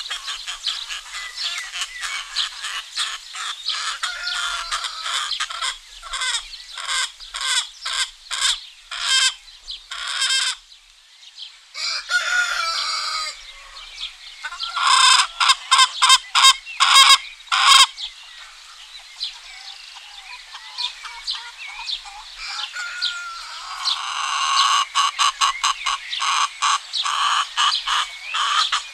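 Domestic chickens clucking in many short repeated calls, with a rooster crowing, and small birds chirping in the background. The loudest run of sharp clucks comes about halfway through.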